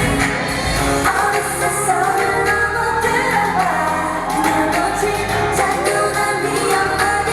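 K-pop girl group performing a pop song live in concert: a loud backing track with women's voices singing a melody.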